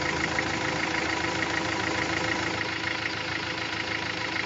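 Engine idling steadily with a fast, even clatter.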